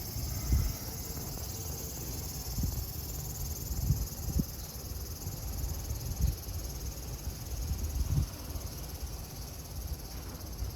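Steady, high-pitched chorus of summer insects, with occasional low thuds underneath.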